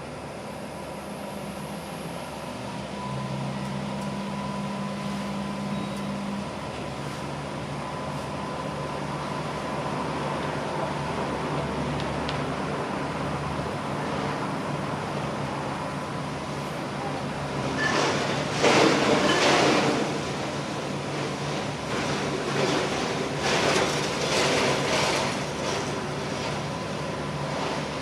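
Laundry machines running with a steady mechanical hum and low drone, broken twice in the second half by louder rushing noise.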